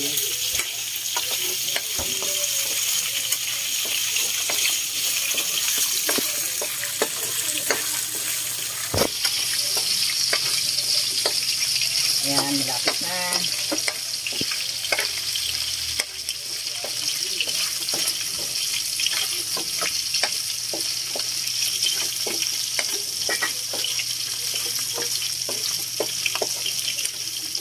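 Pork pieces sizzling as they brown in hot oil in a metal wok, with a metal spatula scraping and clinking against the pan as they are stirred.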